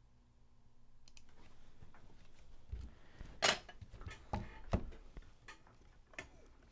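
Handling noises on a repair bench: a few light clicks and knocks as things are moved, the loudest about three and a half seconds in, after a faint rustle.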